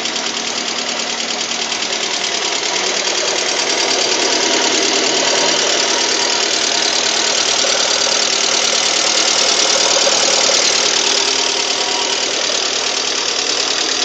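Lada Priora VAZ-21126 16-valve engine running, freshly rebuilt with 82.5 mm oversize pistons, with a rapid, steady knock that the owner says sounds like hydraulic lifters or piston knock.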